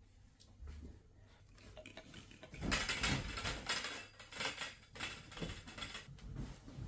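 Curtain fabric rustling and scraping as a gathered curtain is pushed along a metal curtain rod, with light metallic clinks, in a run of uneven bursts starting about two and a half seconds in.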